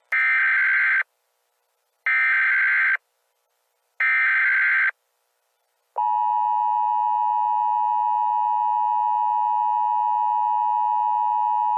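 Emergency Alert System SAME header: three identical bursts of screechy data noise, each about a second long and a second apart. About six seconds in, the steady two-tone EAS attention signal starts. This sequence announces that an emergency alert message is about to be read.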